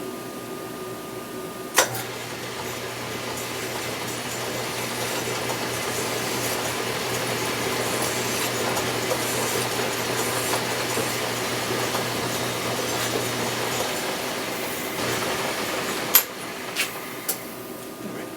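A 10 inch Atlas lathe is switched on with a click about two seconds in and runs steadily with a low hum, while a file scrapes against the spinning metal part to chamfer its ends. The motor stops about fourteen seconds in, followed by a few sharp metal clinks near the end.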